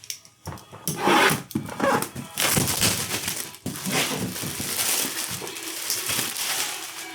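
Plastic packaging rustling and crinkling as it is handled, with a few sharp crackling bursts in the first two seconds and then dense continuous crinkling.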